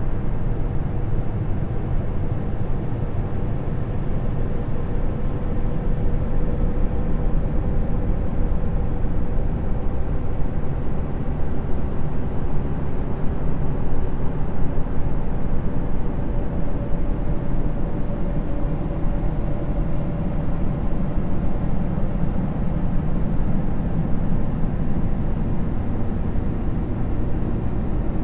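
Steady, unbroken low rumbling drone, a dense noise with a faint hum that wavers slightly above it, presented as the sound of Jupiter's moon Callisto.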